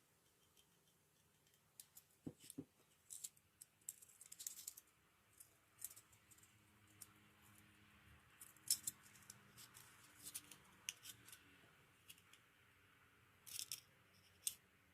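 Faint, scattered clicks and light clinks of small parts and hand tools being handled during carburetor work, a sharper click near nine seconds in and a quick cluster near the end.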